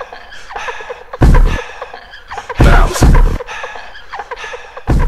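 Hip-hop backing music with deep bass hits landing four times over a busy beat.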